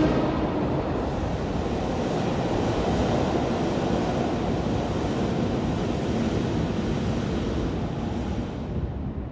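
Electric commuter trains running past on the tracks: a steady, loud rush of wheel and running noise that eases off near the end.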